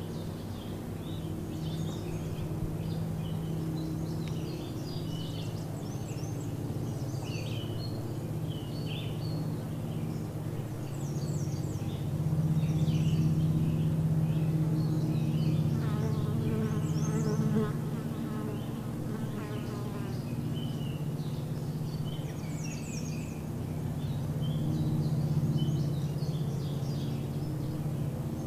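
Nature ambience: a steady low insect buzz, with short high bird chirps scattered throughout and a rippling trill about halfway through.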